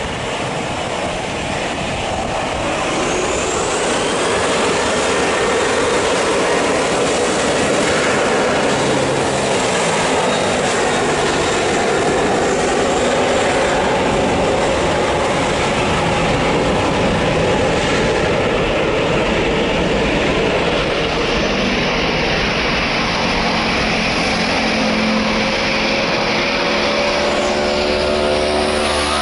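Jet engine roar of a Boeing 737-900ER's twin CFM56 turbofans on the runway. A rising whine and a step up in loudness come about four seconds in, and the roar then holds steady.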